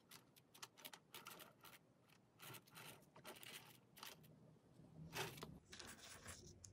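Near silence with faint, scattered rustles and light taps from gloved hands handling a paper cup of whipped candle wax and a metal spatula.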